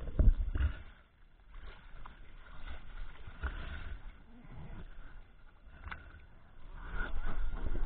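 Water sloshing and splashing against an inflatable boat's tube and a diver in the water, with a heavy bump near the start and scattered knocks and splashes after it.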